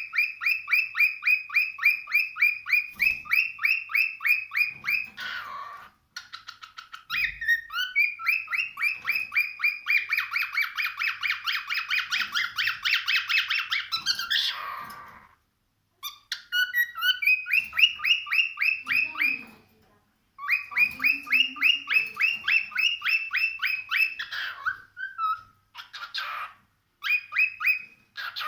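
Cockatiel calling in long runs of rapid repeated chirps, about five to eight a second, in several bouts broken by short pauses.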